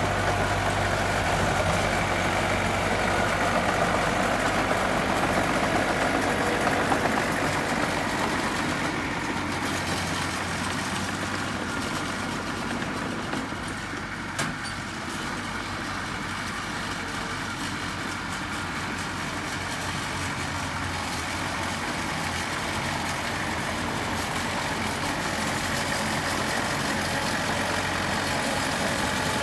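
Heavy construction machine's diesel engine running steadily, louder for the first third and then settling lower, with a single short knock about halfway through.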